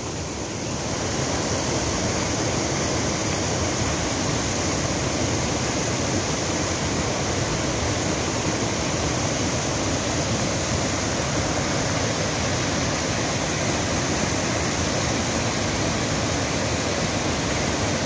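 Steady rush of river water cascading over rock slabs and boulders in a small waterfall, a little quieter in the first second.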